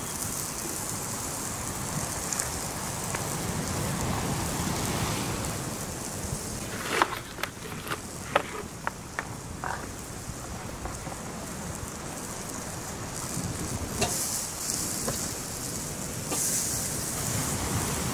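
Steady outdoor hiss and rush of wind or water, with a quick run of sharp clicks about seven seconds in and a single click near the middle.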